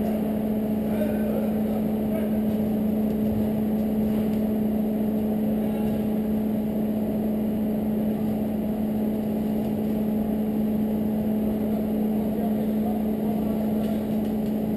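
A steady mechanical drone: a constant low hum with a higher tone an octave above it over an even rushing noise, unchanging throughout.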